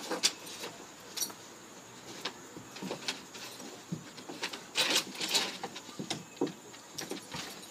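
A wet dog rolling and squirming on bath towels over a wooden deck: irregular rustling and scrabbling of fabric, with claws scraping the boards and small metallic jingles from its collar, busiest about five seconds in.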